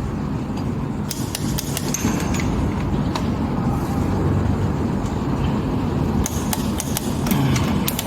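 Light metallic clicks and clinks of tools and engine parts being handled, in clusters about a second in and again near the end, over a steady low rumble of background noise.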